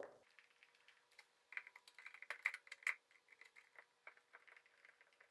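Faint, quick clicks and taps of motorcycle parts being handled, bunched between about one and a half and three seconds in.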